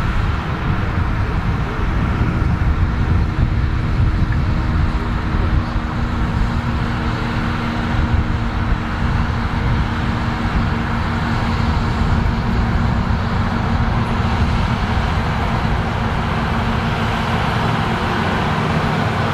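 Case IH Steiger Quadtrac four-track tractor's diesel engine running steadily under load while pulling a tillage implement through corn stubble: a constant low drone.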